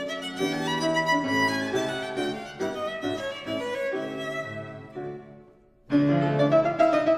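Instrumental music led by violin, playing a run of notes. It fades away about five seconds in, and a louder new phrase starts near the end.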